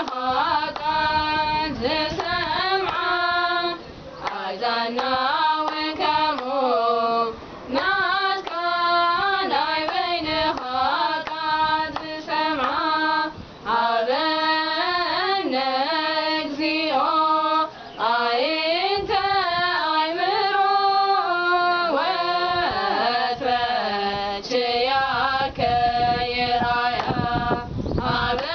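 Three women singing an Eritrean Orthodox Tewahedo mezmur (hymn) together without instruments, with hand claps, in sung phrases broken by short pauses for breath about every four to six seconds.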